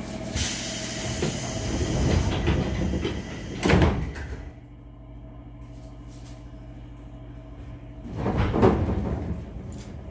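Pneumatic sliding doors of a 205-series commuter train car closing: a hiss of air for about three seconds that ends in a sharp bang. A second loud burst of noise follows a few seconds later.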